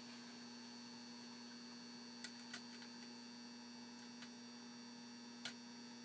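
A few faint, sharp clicks from a hook pick working the pins of a Euro cylinder lock, over a steady electrical hum.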